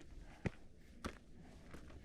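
A hiker's footsteps on a mountain trail: three sharp footfalls at an even walking pace, about two thirds of a second apart.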